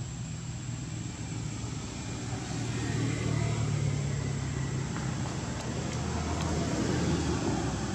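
Low engine rumble of a passing motor vehicle, swelling about three seconds in and again near the end.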